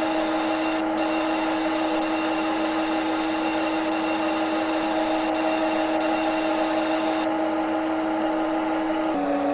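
Machine-tool running sound from a CNC machining simulator: a steady hum at one constant pitch over a hiss, the pitch dropping a step about nine seconds in, as with a change of spindle speed.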